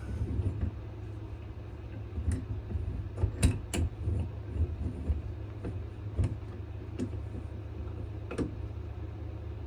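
A few sharp clicks and knocks as a knife handle is set and clamped in a small swivel vise, over a steady low hum.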